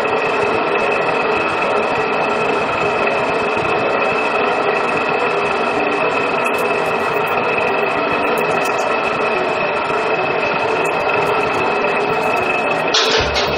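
Electric mixer running steadily, its motor giving a constant whine as the metal shaft stirs a thick white slurry in a plastic drum.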